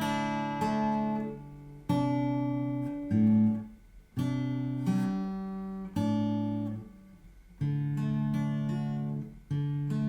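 Yamaha FG850 all-mahogany dreadnought acoustic guitar playing a slow run of strummed chords, each struck and left to ring and fade before the next.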